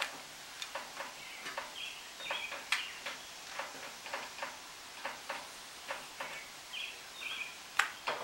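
A new polymer tire being worked by hand onto a bandsaw wheel's rim: irregular light clicks and taps, a few a second, with two brief high squeaks of the tire rubbing on the rim.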